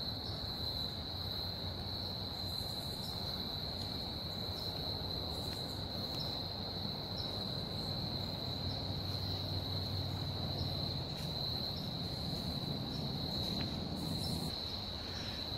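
Crickets trilling in one steady, continuous high-pitched tone. A faint low hum sits underneath for a few seconds midway.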